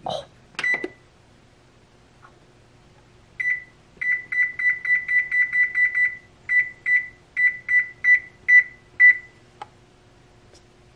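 Amana oven control panel beeping at each button press while the timer is set: a single beep, another a few seconds later, then a fast run of about a dozen beeps, then seven separate beeps as the time is stepped up to 17 minutes.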